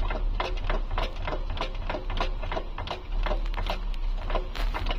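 Repeated knocking, about three knocks a second, from the Volkswagen Polo Liftback's right-side long driveshaft as its wheel is turned by hand; the owner takes it for a strange driveshaft knock.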